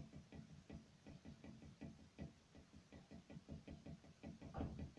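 Near silence with many faint, soft taps and rustles, several a second: light handling noise close to the microphone.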